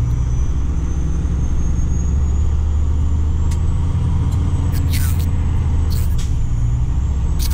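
A heavy truck's diesel engine droning steadily at highway cruising speed, heard from inside the cab along with road noise. A few short crackly bursts come in over the drone in the second half.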